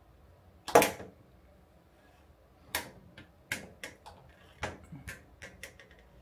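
A single sharp knock, then a run of irregular clicks and taps.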